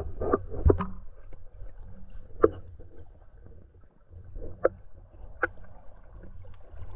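Muffled underwater sound of a shallow, rocky stream, heard through a submerged camera: a steady low rumble of moving water with a few scattered sharp knocks, the loudest about two and a half seconds in.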